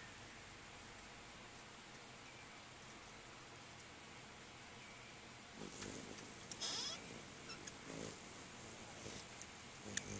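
Faint outdoor background with a high, regular ticking about five times a second. About two-thirds in, ruby-throated hummingbirds give a brief burst of high chattering at the feeder.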